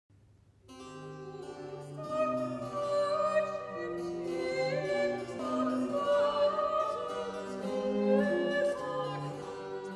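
Slow classical-style intro music, several parts holding long notes and moving together in chords, starting about a second in.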